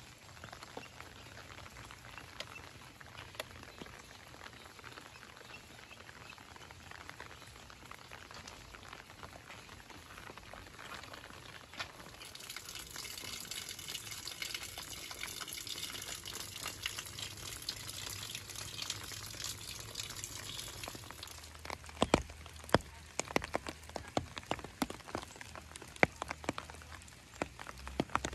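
Rain falling: a light patter at first, a denser steady hiss of rain from a little before halfway, then loud separate drops striking close by in the last quarter.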